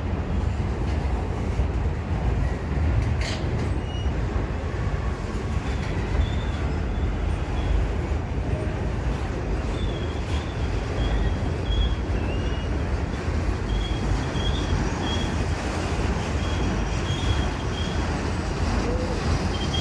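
Freight train rolling by with a steady, heavy low rumble. Brief high squeaks recur through the second half.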